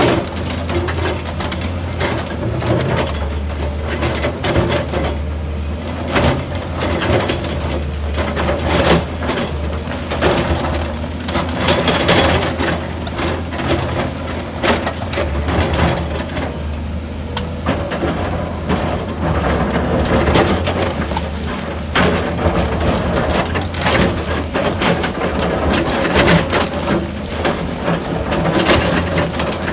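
Volvo EC210B LC crawler excavator's diesel engine running steadily under load while its bucket digs into a fractured rock face, with frequent cracks and clatter of breaking stone and rock falling onto the rubble pile.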